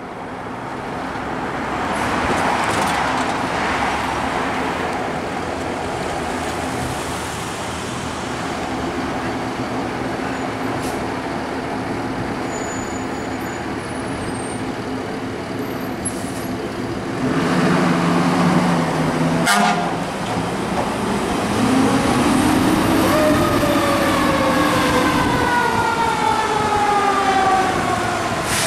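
Fire engine's diesel engine running as the truck pulls out. A low air-horn blast comes a little over halfway through and ends in a sharp click. From about two-thirds of the way in, a siren winds up and then slowly falls in pitch.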